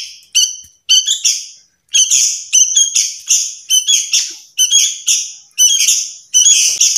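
Young sooty-headed bulbuls (kutilang) hand-raised fledglings giving loud, harsh begging calls for food, about a dozen short rasping notes coming roughly two a second.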